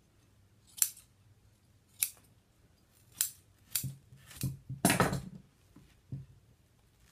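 Scissors snipping away excess batting at the corner of a chair seat: a string of short, separate cuts about a second apart, bunched closer and louder around five seconds in.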